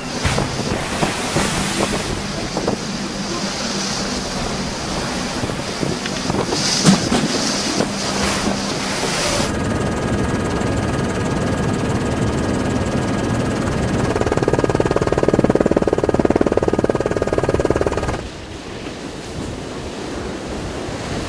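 Storm wind buffeting the microphone and heavy seas crashing and spraying over a ship's deck railing. After a cut about nine seconds in, surf breaking against a grounded freighter, with a faint steady whine over it. About eighteen seconds in the sound drops to quieter breaking waves.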